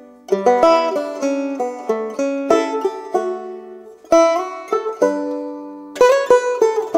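Instrumental background music: a plucked-string tune of quick, sharply picked notes that ring and fade, with a short gap about four seconds in before the phrase starts again.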